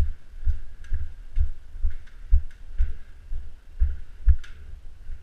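Footsteps of a person walking at a brisk pace, heard as dull low thumps about twice a second through a body-worn camera, with faint clicks and crunches from debris underfoot.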